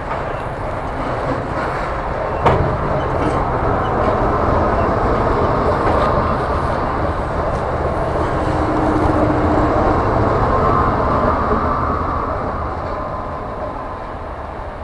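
Freight train of hopper wagons rolling past with steady wheel-on-rail noise and one sharp clank about two and a half seconds in. A steady tone joins around the middle as the rear GE ES43BBi diesel helper locomotive passes, and then the sound fades as the train moves away.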